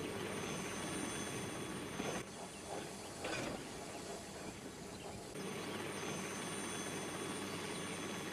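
Dubbed steam-railway sound effects: a steady hiss and rumble, dropping quieter for about three seconds in the middle with a short louder patch.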